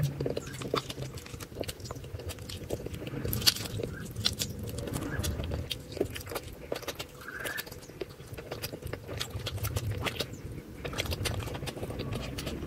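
Close-miked eating sounds: chewing with a dense run of short, wet mouth clicks and smacks.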